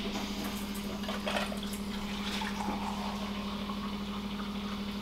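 Hot water running from a three-way boiling-water tap into a glass, with a steady low hum underneath.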